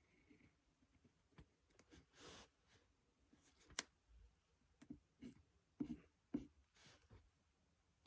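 Faint scratching of a mechanical pencil drawing on paper: a string of short, separate strokes with a few sharp ticks between quiet gaps.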